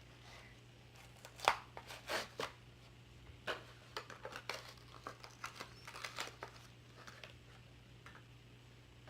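Hot Wheels blister pack being opened by hand: plastic and cardboard crinkling and tearing in irregular crackles, with a few louder rips.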